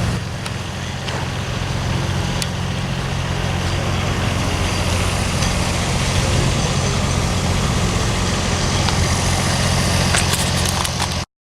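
A motor vehicle engine running steadily, a low even drone with a few faint clicks over it, cut off abruptly near the end.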